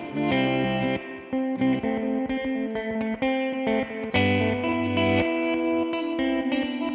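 Electric guitar, an American Vintage II Jazzmaster, played through an Old Blood Noise Endeavors BL-44 reverse effect pedal. It plays a melodic passage of picked notes with sustained tails.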